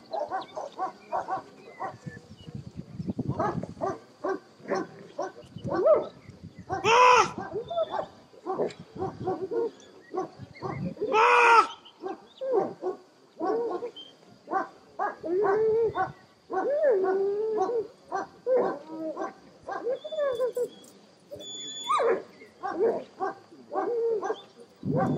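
German shepherd dogs barking over and over in a steady run of short barks. Two louder, longer barks come about a quarter and about halfway through.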